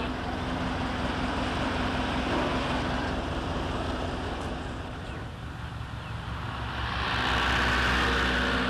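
Motor vehicle running with road noise: a steady low engine hum under a broad rushing noise, growing louder near the end.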